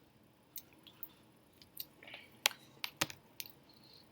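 Close-up eating sounds from a person eating mashed potato: an irregular scatter of faint wet mouth clicks and smacks.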